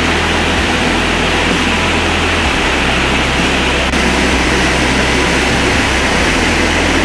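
Loud, steady roar of whitewater: a river rushing through rapids and over the brink of a waterfall.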